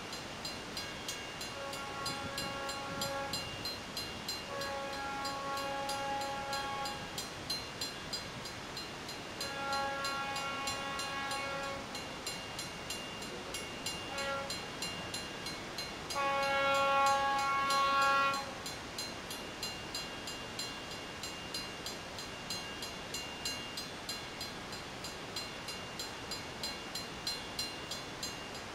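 Approaching locomotive horn sounding a series of long blasts, a short one and a final, louder long blast, in the pattern of a grade-crossing warning. A steady, regular ticking runs underneath throughout.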